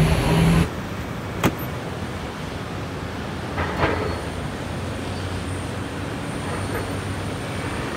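Steady outdoor traffic noise. A louder opening stretch with a low hum cuts off abruptly just after the start, a single sharp click comes about a second and a half in, and a short knock comes near four seconds.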